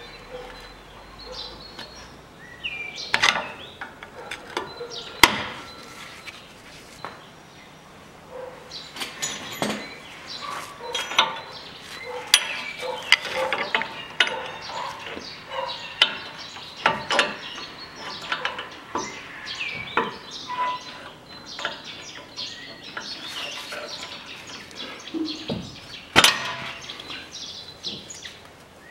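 Irregular metal taps, knocks and clinks of hand tools on a front steering knuckle as the wheel-speed sensor is worked loose. The sharpest strikes come about three, five and twenty-six seconds in.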